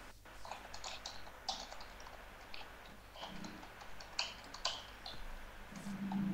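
Typing on a computer keyboard: quick, irregular keystrokes, faint and close to the microphone.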